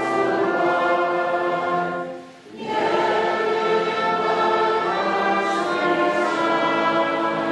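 Orchestra and choir performing a sustained passage of classical holiday music, breaking off briefly about two seconds in and then resuming.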